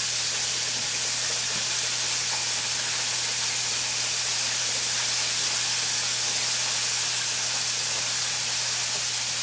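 Flour-dredged pork chops frying in hot oil in a skillet: a steady, even sizzle.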